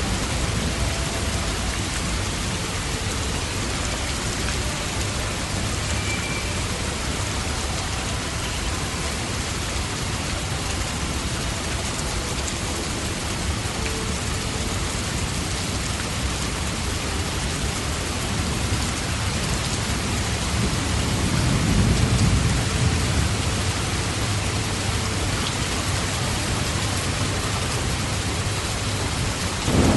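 Steady heavy rain falling on a surface, an even hiss throughout. A low rumble of thunder swells and fades about two-thirds of the way through, and a sharper thunderclap begins right at the end.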